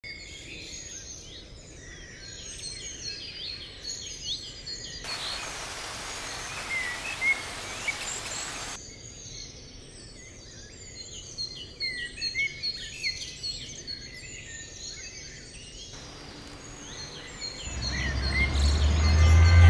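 Many birds chirping and singing at once, overlapping short calls and quick whistles, with a steady hiss in the middle for about four seconds. Near the end a low city traffic rumble swells in.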